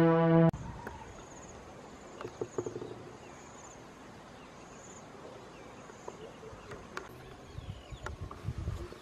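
Intro music cuts off about half a second in. Then an insect sings a short, high, pulsed trill that repeats roughly every two-thirds of a second. A few faint clicks come in between, and near the end there are low irregular knocks of footsteps on loose stones.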